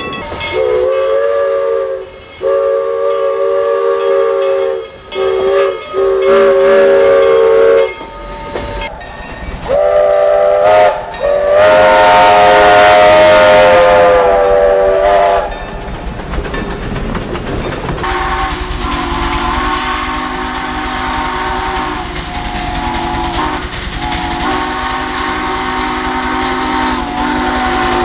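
Real train whistle sounding the long, long, short, long crossing signal, then a short blast and a long one. After that, the steady rumble of a passing train.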